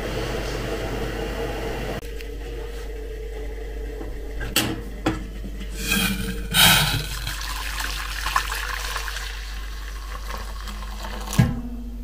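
Steady rush of water from a dishwasher running its wash cycle, with several sharp knocks and clanks of enamel pots and a kettle being moved on a gas stove in the middle and near the end.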